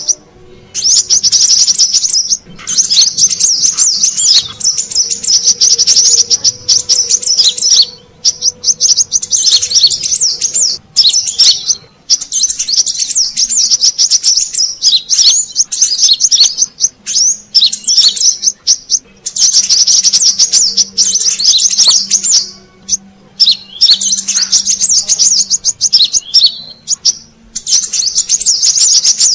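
Brown-throated sunbird (kolibri kelapa) call recording played as a bird lure: loud, rapid, high-pitched twittering in phrases of one to three seconds, broken by short pauses.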